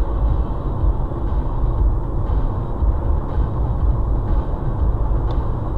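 Steady low rumble of a car driving at highway speed, mostly tyre and road noise with the engine, heard from inside the cabin.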